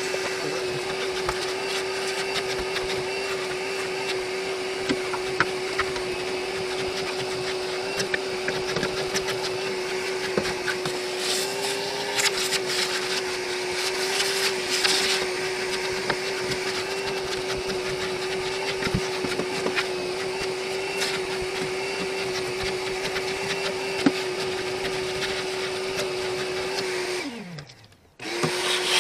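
Wet/dry shop vacuum running steadily with a constant whine and rushing hiss, with scattered clicks and rattles as it picks up debris. Near the end it is switched off, its motor winding down in pitch to near silence. It is switched back on a moment later.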